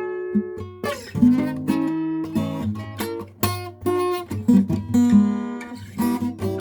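Acoustic guitar playing a slow instrumental blues, with plucked notes and strummed chords that ring out between attacks.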